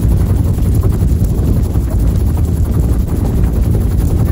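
Bell UH-1 Huey helicopter in flight, heard from on board: the loud, steady rapid beat of its two-bladed main rotor over the turbine engine's running.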